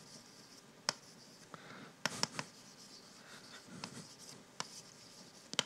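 Chalk writing on a blackboard: faint scratching with a handful of short, sharp taps as the chalk strikes the board.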